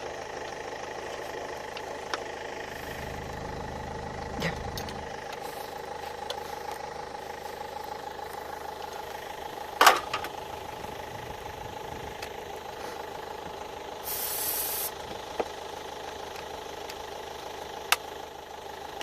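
Land Rover Freelander 2.0 TD L-series diesel turning over on the starter motor without firing, a steady cranking whirr: the engine won't start because air is leaking into its fuel pipes. A sharp click comes about ten seconds in and a short hiss about fourteen seconds in.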